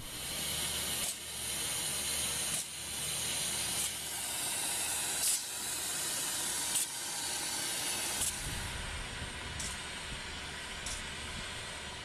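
Road-marking machine spraying paint: a loud, steady spray hiss, broken by a short pulse about every one and a half seconds.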